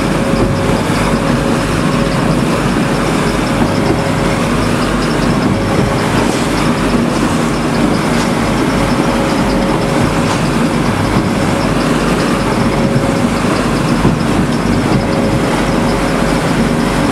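Fishing boat's engine running steadily at trolling speed: a constant drone with a rushing noise over it.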